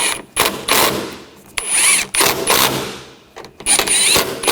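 Power driver running in three short bursts with a rising whine, driving in the screws that hold the door latch.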